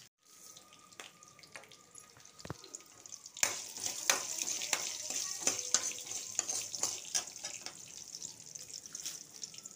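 Garlic cloves, small onions and red chillies frying in oil in a steel pan, sizzling while a metal spoon stirs and scrapes them. The sizzle is quieter at first and grows louder about three and a half seconds in.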